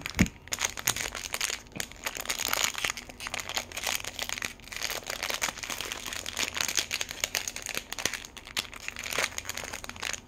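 Small sealed toy baggie crinkling and crackling in the hands as it is squeezed and pulled at to open it, with many sharp crackles throughout; the bag is hard to open.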